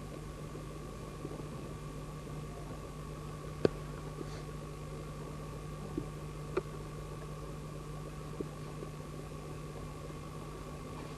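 Steady electrical hum and hiss of an old video recording, with a few scattered knocks, the sharpest about three and a half seconds in and fainter ones around six to eight seconds.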